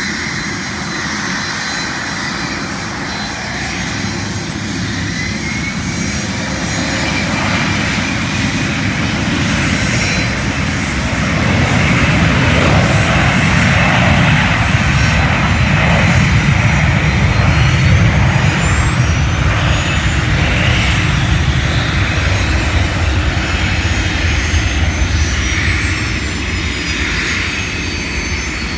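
Business jet engines running as several jets taxi past, with a loud roar building up about halfway through as a jet powers up for take-off. A high turbine whine climbs in pitch and then slowly falls away.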